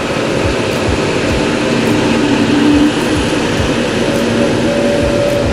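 Airbus A320neo airliner's jet engines running loud: a steady rushing noise with a few humming tones that drift slightly in pitch.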